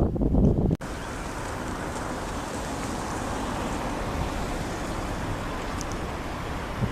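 A loud low rumble that cuts off abruptly about a second in, followed by a steady, even rushing noise.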